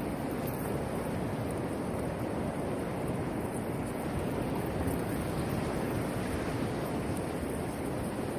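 Steady rushing wash of sea surf on the beach, mixed with wind.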